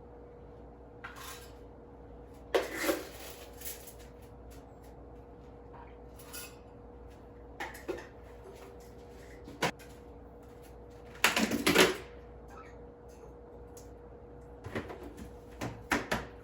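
Scattered clicks and clatters of hard household objects being handled, the loudest a short rattling cluster about two-thirds of the way through, over a faint steady hum.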